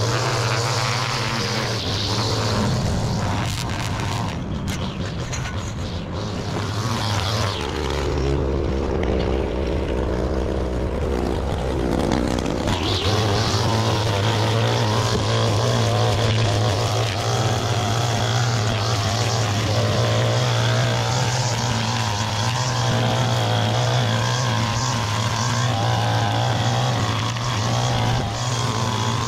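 Gas string trimmer running at high throttle while cutting grass. About seven seconds in, the engine drops to a lower pitch for about five seconds, then revs back up and runs steadily.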